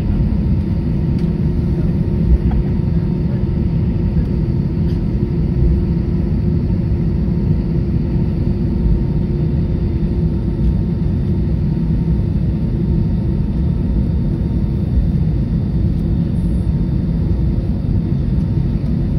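Steady engine rumble heard inside a passenger airliner's cabin while the plane rolls slowly along the taxiway, with faint steady whine tones above the rumble.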